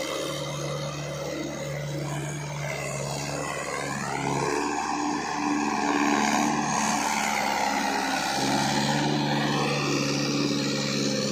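Trakstar 545 tractor's four-cylinder diesel engine running under load while pulling a rotavator through wet, muddy ground. The engine note shifts and gets a little louder about four seconds in.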